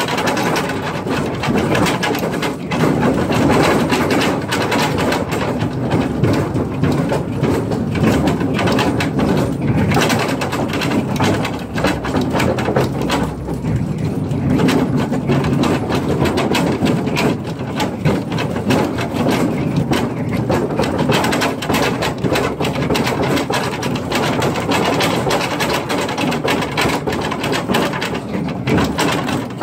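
Mine train cars rattling and clattering steadily over the rails in a tunnel, a dense run of knocks and jolts from the bumpy ride.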